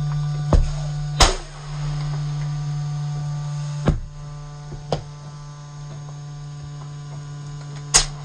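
Compactor container's drive running with a steady low hum while black plastic garbage bags are crushed against the press. Several sharp pops and cracks of bags bursting cross the hum; the loudest comes just over a second in and another near the end.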